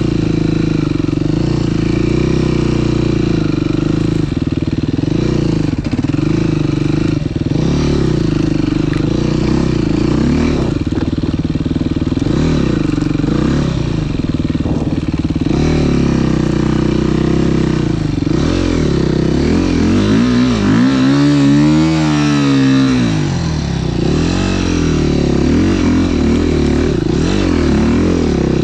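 Dirt bike engine running hard under the rider, its revs rising and falling constantly with the throttle. Near the end, a couple of seconds of fast, wavering revs as the bike slides on snow, which the rider calls slipping like hell.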